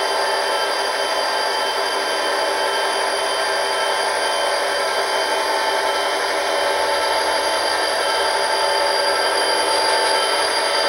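Two HO-scale Athearn SD40-2 model locomotives running together, their SoundTraxx Econami decoders playing EMD diesel prime-mover sound through small sugar-cube speakers: a steady, buzzy diesel drone along with the models' motor and wheel noise. It grows slightly louder near the end.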